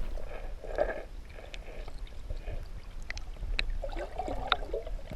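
Low rumble of wind on the microphone over faint water sounds, with a few light clicks.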